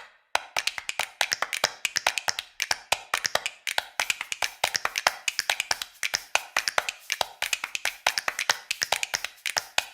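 Background music of a fast, clicking percussion beat, snaps or taps several times a second, with no bass or melody.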